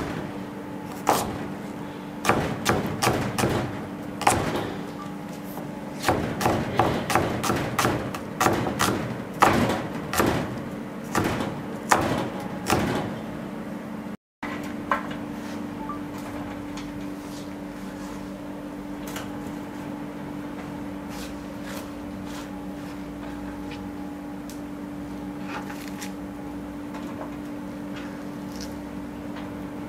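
Chef's knife chopping a red onion on a plastic cutting board: quick, irregular knocks of the blade on the board, coming in runs. About fourteen seconds in the chopping stops, and a steady low hum remains with a few faint ticks.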